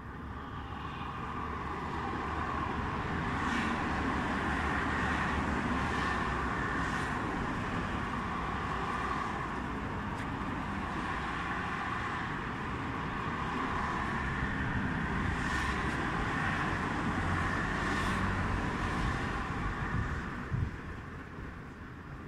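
Distant motor traffic: a steady mixed rumble and hiss that swells over the first few seconds and fades away near the end.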